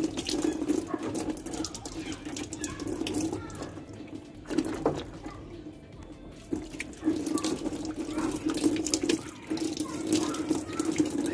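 A thin stream of water pouring from a large plastic bottle and splashing over hands and a yam as it is washed and peeled, with the knife scraping the yam's skin. The flow drops away for about two seconds around the middle, then runs on steadily.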